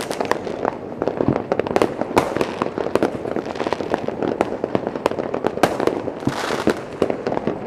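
Many fireworks and firecrackers going off at a distance and overlapping: an irregular barrage of bangs and sharp pops, several a second, with a thicker burst of crackling a little past six seconds in.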